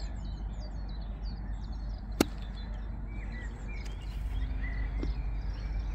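A golf club striking the ball on a short chip shot: one sharp click about two seconds in. Birds chirp now and then over a steady low rumble.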